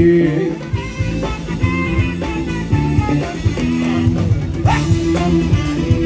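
Live band playing an instrumental passage between sung lines: electric bass and drum kit keep a steady beat under held melody notes.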